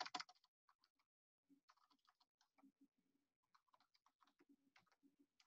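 Near silence, with a few brief computer keyboard clicks in the first moment.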